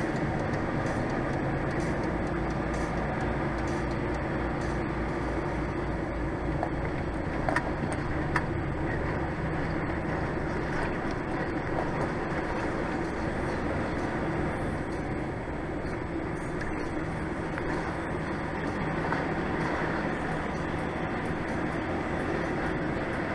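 Diesel engine running steadily with a low hum and a throbbing rumble that eases after about eight seconds; two short clicks around seven and eight seconds in.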